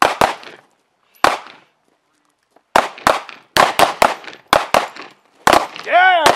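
Several handguns firing single shots at an irregular pace from a line of shooters: a few spaced shots at first, then a fast, uneven string of shots from about three seconds in.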